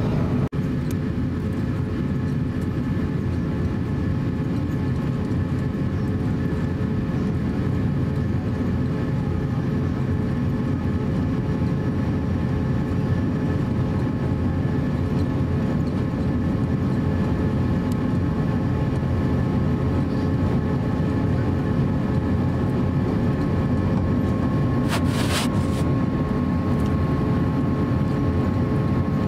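Airbus A350-900 cabin noise while taxiing: a steady low rumble from the Rolls-Royce Trent XWB engines at idle, with a few steady whining tones over it. A brief hiss cuts in near the end.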